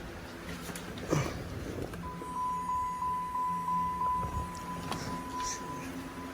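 Dodge Challenger's in-cabin warning chime: a click about a second in, then from about two seconds in a steady high tone that pulses about three times a second and fades near the end. It sounds as the car's electrics are switched on to test the new headlights.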